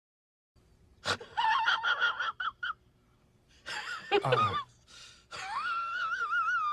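A comic sound effect of a high, wheezy, voice-like sound in three bursts, the pitch wavering up and down, ending in a long warbling note.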